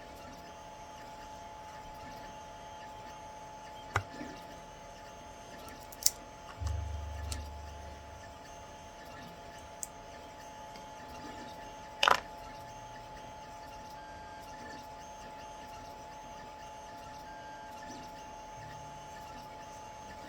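A few sharp clicks and snaps of resin supports being broken off a 3D-printed figure, the loudest about twelve seconds in, over a steady two-tone hum.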